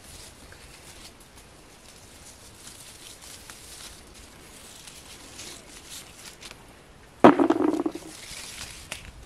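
Leaves and twigs of a cornelian cherry bush rustling and ticking faintly as berries are picked from the branches by hand. About seven seconds in, a sudden loud sound cuts in and lasts under a second.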